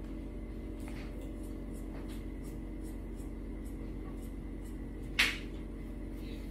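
Steady low hum throughout, with one short crisp snip about five seconds in: scissors cutting open a plastic sauce sachet.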